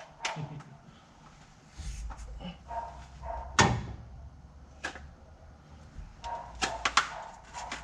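Scattered knocks and clicks of tools and parts being handled, the loudest strike about three and a half seconds in and a quick cluster of clicks near the end, over a low hum.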